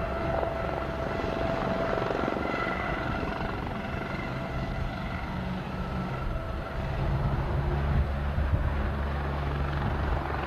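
Coast Guard Aérospatiale HH-65 Dolphin helicopter flying low and hovering, its rotors and turbines running steadily with a high whine over the rotor noise. It grows louder over the last few seconds.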